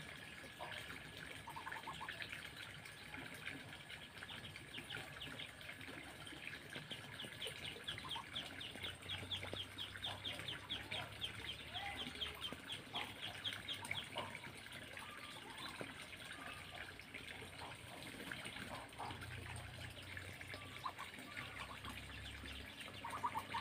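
A brood of Muscovy ducklings peeping: a continuous stream of short, high cheeps, thickest in the middle.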